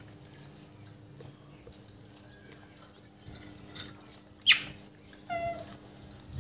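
Rhesus macaque calls: a sharp squeak that drops quickly in pitch, then a short higher-pitched call about a second later, after a few crackling clicks.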